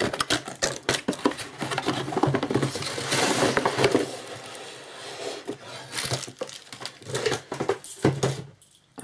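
Cardboard packaging being handled: a printed sleeve slid off a box and a moulded pulp insert lifted out, with rustling, scraping and light knocks. A longer stretch of rubbing comes about three seconds in, and the handling grows sparser towards the end.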